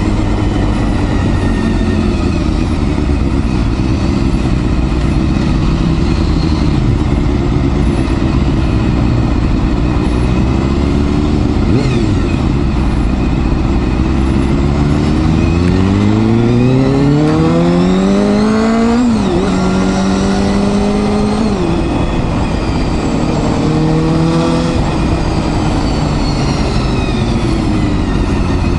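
Honda Hornet 250's inline-four engine running low, then revving up in a long rising climb, dropping suddenly about nineteen seconds in, holding level, and dropping again. A shorter rise and fall follows. A steady rushing noise sits under the engine throughout.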